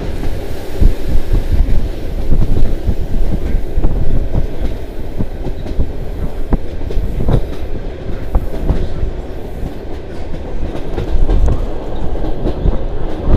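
ED2T electric commuter train running, heard through an open window: a heavy rumble of the cars with wheels clattering over rail joints now and then, and wind buffeting the microphone.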